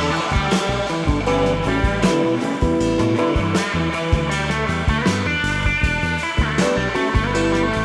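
Rock band playing an instrumental passage: electric guitar over bass and a steady drum beat, in a psychedelic rock style.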